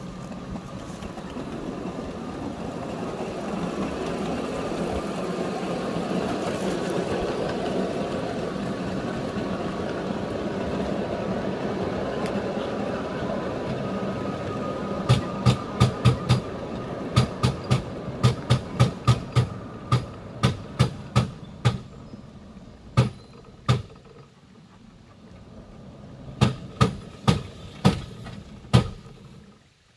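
Small ride-on locomotive's engine running as it pulls a loaded ballast car. From about halfway, a run of sharp, irregular bangs starts: the drive chain jumping a sprocket, a sign that the chain is loose and needs tightening. The engine sound dies down toward the end.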